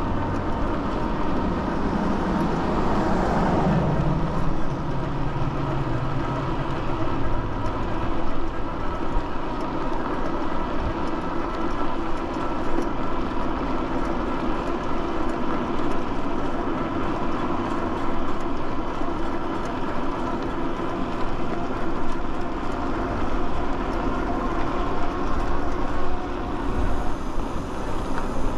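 Steady riding noise from an e-bike cruising at about 15 mph on asphalt: a rush of wind and tyre noise with a faint steady hum. There is a brief swell of lower sound two to four seconds in.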